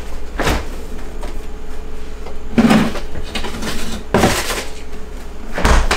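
Refrigerator door being opened and handled: four separate knocks and thuds spread over a few seconds, the loudest near the end.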